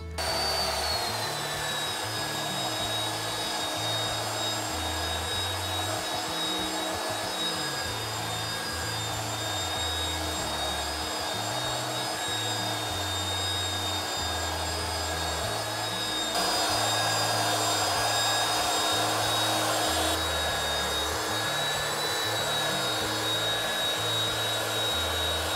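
Porter-Cable belt sander running steadily with a high whine as it sands a rough-sawn walnut board, taking out the sawmill's saw marks. It gets louder for a few seconds about two-thirds of the way through.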